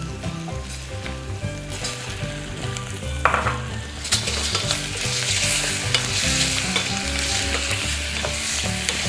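Shrimp, onion and garlic frying in olive oil in a stainless steel saucepan on high heat. The pan sizzles as a wooden spoon stirs the shrimp in, and the sizzle gets louder about four seconds in.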